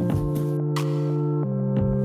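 Background music: held chords with a few short sharp hits, the chord changing about one and a half seconds in.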